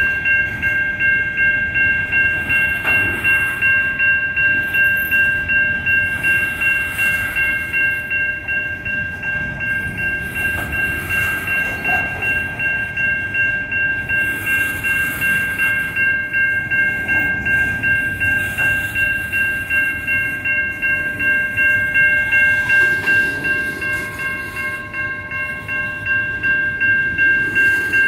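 Type 3 Safetran electronic crossing bell ringing in rapid, even strokes, over the rumble and rattle of empty coal hopper cars rolling past on the rails.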